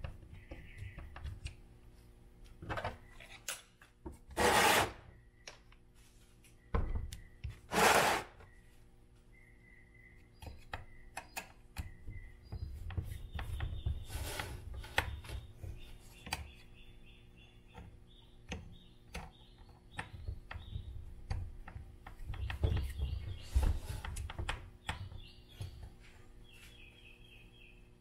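Small screws being driven with a hex driver into the plastic chassis of a Traxxas Slash 4x4 RC truck: scattered clicks and rubbing, with two louder scraping bursts about four and eight seconds in. Faint high chirps repeat through the second half.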